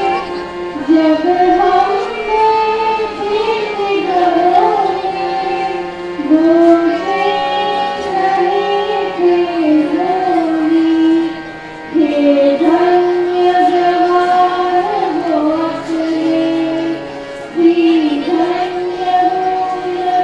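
A girl singing a patriotic song to her own harmonium accompaniment: one sung melody line over the harmonium's steady drone, with short breaks between phrases.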